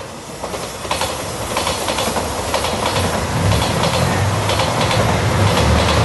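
JR Shikoku 2700-series diesel railcar train approaching and passing close by, growing steadily louder: wheels clicking over the rail joints, with a low diesel engine drone coming in about three seconds in as the cars go past.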